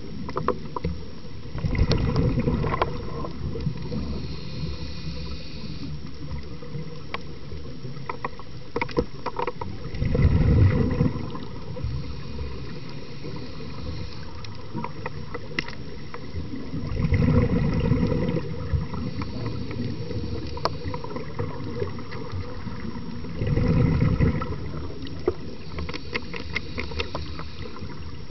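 Underwater sound picked up through a camera's housing: a dull, steady rumble broken about every seven seconds by a louder bubbling burst lasting a couple of seconds, the rhythm of a diver breathing out through a regulator, with scattered sharp clicks and crackles throughout.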